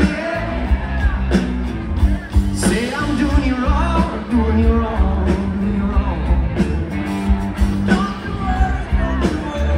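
Live rock band playing, with a singer's voice carried over the band.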